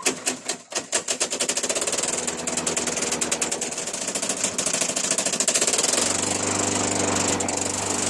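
Honda HRC216 commercial lawn mower engine running, firing unevenly with a rapid rattle at first, then settling into a steadier hum about six seconds in. It runs rough, and the owner says it doesn't sound good.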